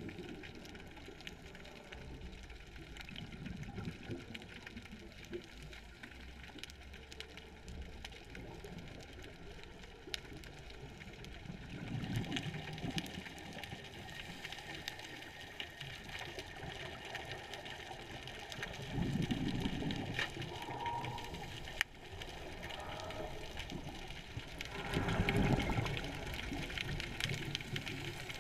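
Muffled underwater ambience from a diver's camera, with three louder rushes of exhaled scuba bubbles about six seconds apart.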